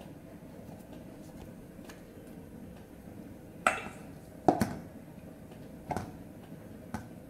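Four sharp metal clinks, starting about halfway through, as a stainless steel idiyappam press knocks against a steel bowl while dough is packed into it by hand.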